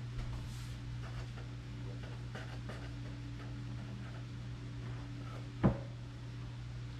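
Kitchen knife cutting through ciabatta dough on a countertop: faint scraping, and one sharp knock of the blade on the counter a little past halfway, over a steady low hum.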